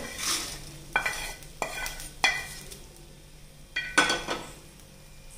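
Metal spoon scraping fried peanuts and curry leaves out of a steel pan into a wok of puffed rice, knocking against the pan five times with sharp ringing clacks, the last two in quick succession.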